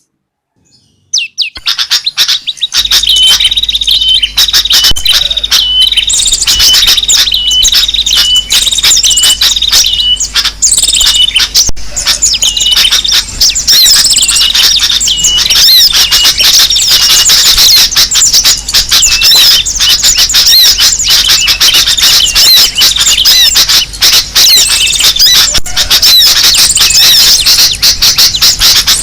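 A noisy, dense chorus of sooty-headed bulbuls (kutilang) and other small birds. The chirps and calls overlap without a break and start about a second in.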